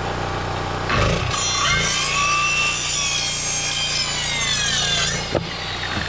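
Black & Decker circular saw running and cutting through a wooden board, the cut starting about a second in and finishing about five seconds in.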